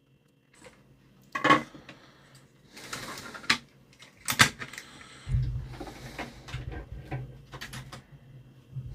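Clicks and knocks of small parts and tools being handled during an electronics repair, with a short hiss about three seconds in. From about five seconds a low steady hum joins.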